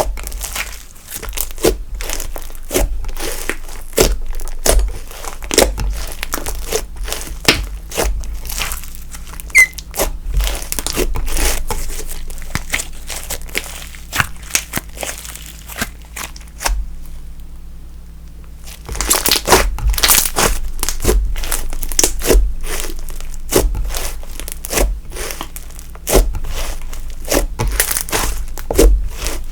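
Slime being squished, pressed and stretched by hand, giving a dense run of clicks and crackles from popping air pockets. There is a short pause a little past halfway, then busier clicking.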